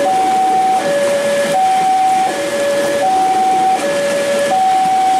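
Two-tone level-crossing alarm sounding a steady high-low chime, each note held just under a second. Under it runs a continuous hiss of heavy rain and the passing KRL electric commuter train.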